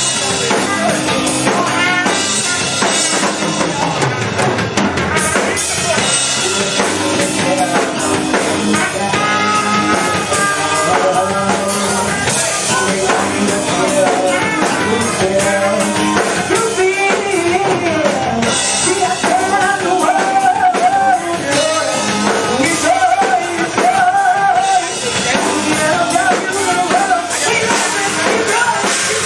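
Live rock band playing a song with a drum kit and electric guitars, a vocalist singing and rapping into a microphone over it, heard through a bar's PA.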